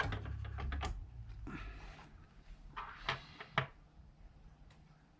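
Small parts of an AAP-01 airsoft pistol being handled: a few sharp clicks in the first second, a brief rustle about a second and a half in, then more clicks around three seconds in.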